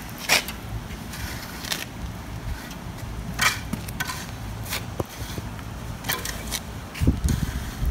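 Asphalt rake scraping through fresh hot asphalt in repeated strokes, about one every second and a half, to level a driveway patch. A low steady rumble runs underneath, with a few dull thumps near the end.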